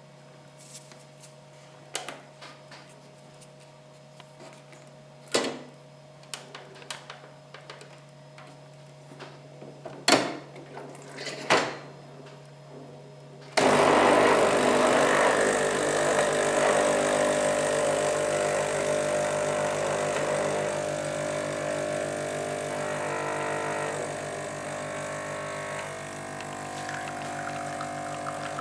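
A few clicks and knocks from handling a Saeco Via Torretta 240 capsule coffee machine. About halfway through, the machine's pump starts suddenly and runs steadily with a fast pulsing drone while it brews, slowly getting quieter.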